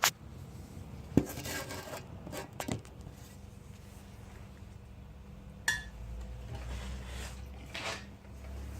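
Small hard objects being handled and set down: a few sharp knocks and clinks, one about six seconds in with a brief metallic ring, between stretches of rustling, over a low steady hum.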